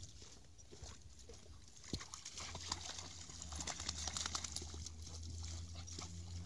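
Two playing puppies, a German Shepherd and an American Staffordshire Terrier, splashing and scuffling in shallow water. About two and a half seconds in, a low, steady play-growl sets in and keeps going.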